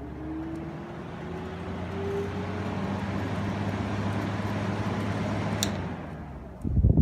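GE 5010 BTU window air conditioner's fan motor starting on low: a whine rising in pitch as the blower spins up, under a steady hum and rush of air. A sharp click comes about five and a half seconds in, the hum drops out soon after, and loud low thumps follow near the end.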